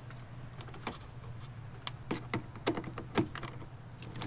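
Irregular light clicks and knocks, about nine of them, from handling a circuit breaker's plastic cover and its wiring as the cover is fitted over the terminal. A low steady hum runs underneath.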